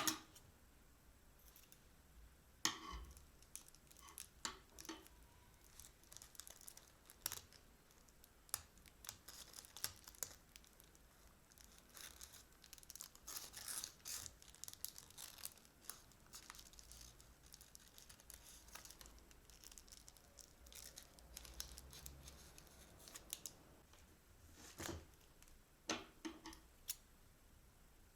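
Faint crinkling and tearing of plastic piping bags being handled, with scattered sharp clicks, busiest in the middle.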